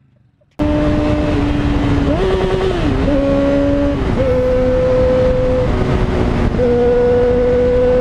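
Yamaha XJ6's inline-four engine running at high revs while riding at speed, with wind noise on the microphone. It starts suddenly just under a second in, and its pitch steps up and down a few times through gear changes.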